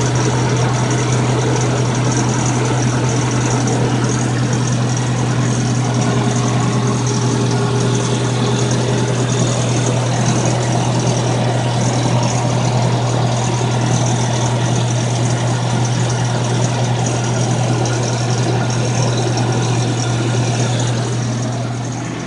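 Toyota engine idling with a steady low hum, the noise at idle that the owner is pointing out. It eases off slightly near the end.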